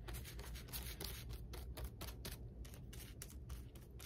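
Fan paintbrush bristles brushing acrylic paint onto paper in quick, repeated short strokes to make grass: a faint scratchy brushing, about three or four strokes a second.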